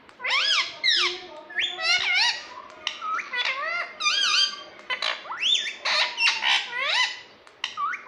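A ring-necked parrot giving a rapid, continuous run of short squawking calls, many of them swooping up and then down in pitch, with only brief pauses.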